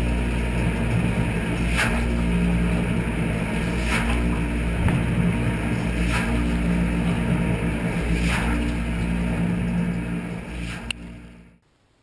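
Dishwasher wash cycle heard from inside the tub: the circulation pump runs with a steady hum while water sprays over the racks, with a louder swish of water about every two seconds. It stops abruptly near the end.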